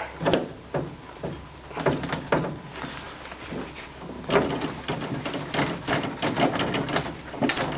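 Tools and metal parts being handled in a workshop: scattered knocks and clicks, then from about four seconds in a quick run of clicks.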